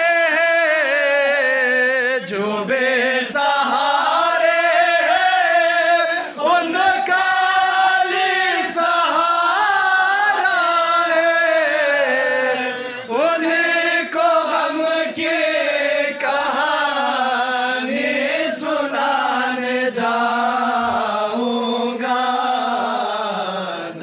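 Unaccompanied male devotional singing of a manqabat in praise of Ali, with long drawn-out melodic phrases whose held notes glide up and down.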